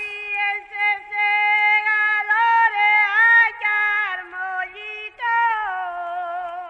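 A single voice singing a slow, unaccompanied melody in long held notes, ending on a long note with vibrato that trails off.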